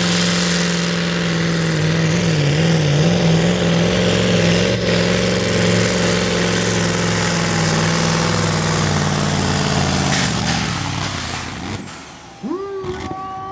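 Diesel engine of a Magirus Deutz pulling truck held at high revs under full load as it drags a weight sled, running rich with heavy black smoke. The pitch holds steady with a brief waver early on, and the engine fades away after about ten seconds. Near the end a new steady tone rises and holds.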